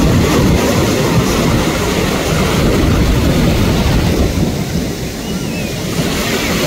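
Sea surf washing and breaking close to the microphone: a steady rushing noise with a heavy low rumble, easing briefly about five seconds in.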